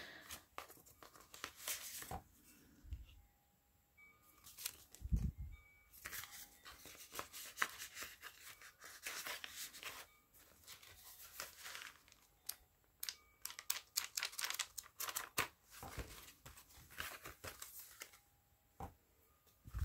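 Paper rustling and crinkling, with small clicks and scrapes, as the stiff card and foil-paper pages of a handmade junk journal are turned and lifted by hand. There are a couple of soft low bumps in the first few seconds.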